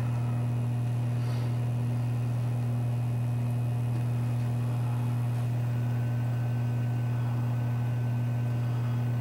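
Steady low electrical hum at an even level, with a faint thin high-pitched tone joining about halfway through.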